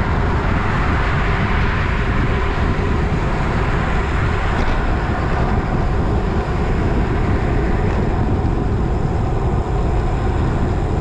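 Steady wind and road noise from riding a bicycle on the road, with wind buffeting the microphone.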